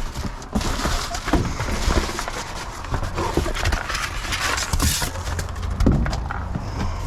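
Plastic bags and food packaging being rummaged and handled, rustling and crinkling, with irregular knocks and clatters as packages bump against each other.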